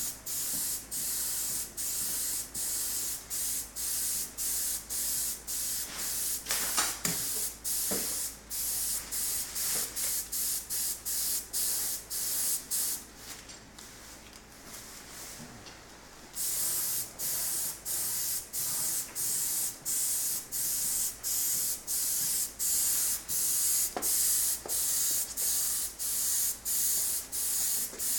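Gravity-feed paint spray gun hissing in short, regular bursts about twice a second as the trigger is pulled and released on each pass. The spraying stops for about three seconds midway, then picks up again at the same pace.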